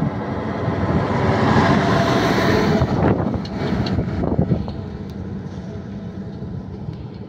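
Heavy dump truck driving past close by. Its engine and tyre noise swells over the first three seconds, with a few rattling clicks as it goes by, then fades after about four and a half seconds.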